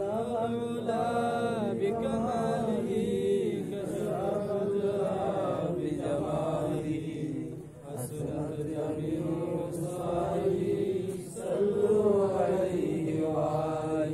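Men's voices chanting a devotional Islamic song together, led by one singer on a microphone, in phrases broken by short breaths about every four seconds.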